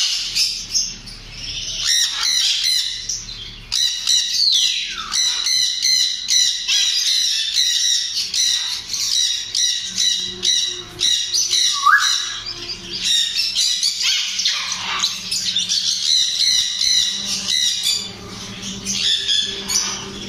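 A flock of grey parrots chattering, a dense stream of short squawks and chirps, with now and then a whistle sliding up or down in pitch.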